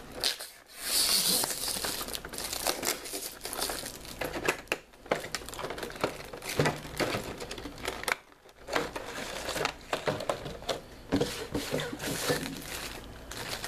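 Packaging of a boxed action-figure set being opened by hand: plastic and cardboard crinkling and rustling with sharp crackles, pausing briefly about half a second in and again about eight seconds in.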